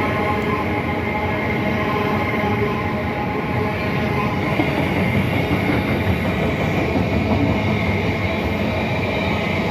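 A train running, with a steady rumble and faint steady tones over it.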